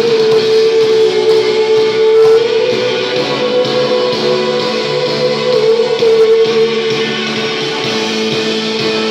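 Band music from a worship song: an instrumental passage with guitar to the fore and one long held note lasting most of the stretch, over a full band backing.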